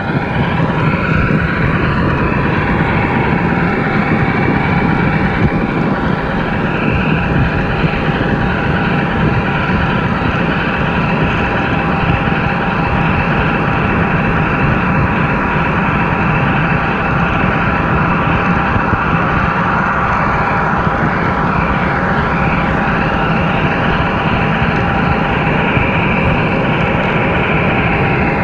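Model subway train running along its track, heard from a camera riding on it: a steady motor whine over a continuous rumble of wheels on rail.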